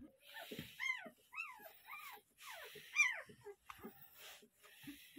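Puppies whimpering: a run of about five short, high squeals, each rising then falling in pitch, the loudest about three seconds in. Blankets rustle under a hand.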